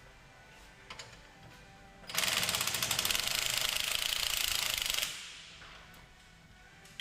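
An impact wrench hammering in one burst of about three seconds, a fast, even rattle of blows that starts about two seconds in, cuts off, and trails away. Faint background music underneath.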